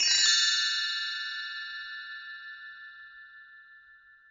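A burst of bell-like chimes rings out at once and slowly dies away, several high ringing tones fading together over about four seconds.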